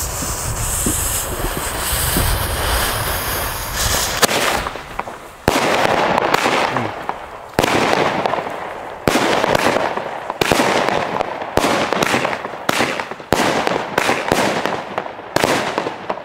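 Xplode Gizmo 9-shot consumer firework battery (cake): a hissing fuse for about four seconds, then the shots go off one after another, roughly a second apart, each a sharp bang that fades out before the next.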